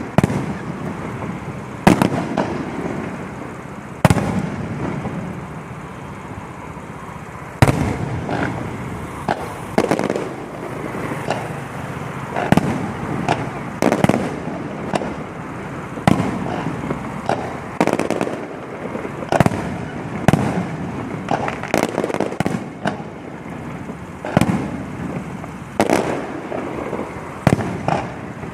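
Electronic fireworks going off: sharp bangs every second or two, with smaller pops and crackling between them.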